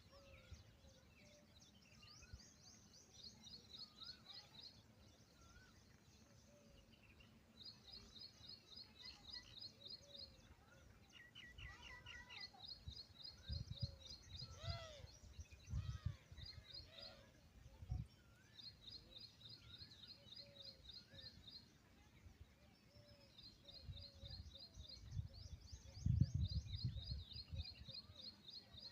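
Small birds singing outdoors: a high, rapid trill repeated every few seconds, with scattered chirps between. Low rumbling thumps come and go, the loudest near the end.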